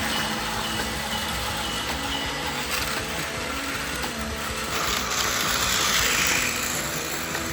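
Battery-powered Plarail-type toy trains running on plastic track: a steady whirr of small motors and wheels. About five seconds in a noisy swell rises and then falls in pitch.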